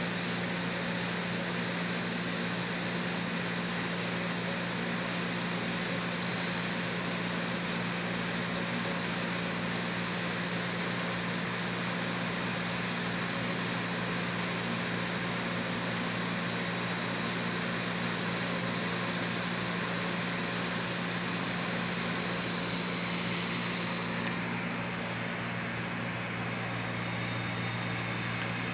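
Hard drive spindle motor spinning the clock's slotted platter at speed: a steady high-pitched whine over a low hum. About three-quarters of the way through, the whine shifts a little lower and gets softer.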